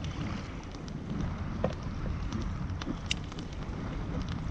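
Wind buffeting the microphone with water lapping against the hull of a sit-on-top fishing kayak drifting at sea, and a few faint clicks, the sharpest about three seconds in.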